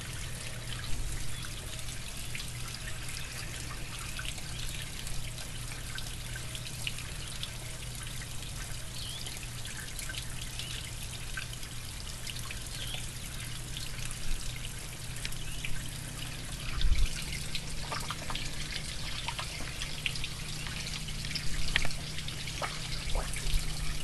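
Water trickling and dripping steadily, from a garden koi pond, with a low steady hum underneath.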